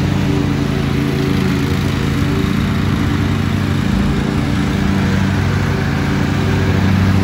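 Lawn mower engine running steadily while mowing, holding an even pitch.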